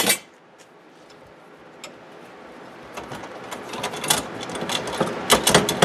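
Light clicks, taps and scraping of a metal clamp and aluminium diamond-plate sheet being handled on a workbench. It starts faint and grows busier and louder, with a few sharp clinks near the end.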